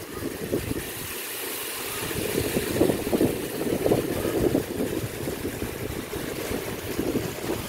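Thick red chili sauce with chicken simmering in a wok, bubbling and popping irregularly over a steady rushing noise.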